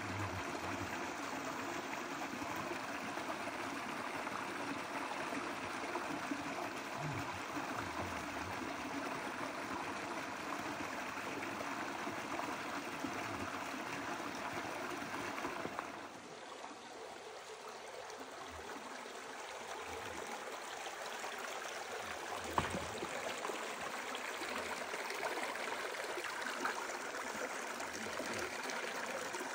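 Shallow rocky mountain stream running over and between boulders: a steady rush and trickle of water. A little past halfway it becomes slightly softer and less hissy, and a single brief tap stands out a few seconds later.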